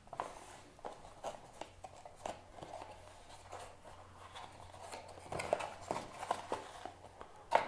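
Cardboard box and packaging being handled while a product is unboxed: scattered small clicks, taps and rustles, busier near the end.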